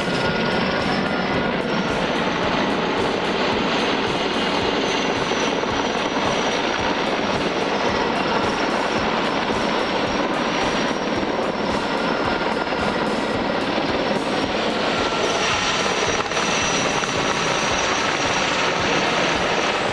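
Heavy-lift helicopter running steadily, its rotor noise carrying a high, steady turbine whine.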